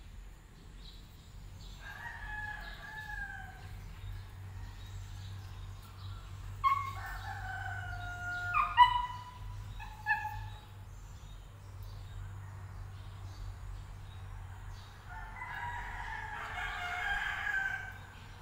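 Rooster crowing several times, the longest crow near the end, over a steady low hum.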